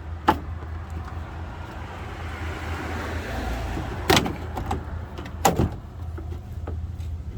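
Three sharp clicks and knocks, about a second apart and then two close together, from working a bulb socket loose in a Pontiac Montana headlight housing. They sit over a steady low background rumble.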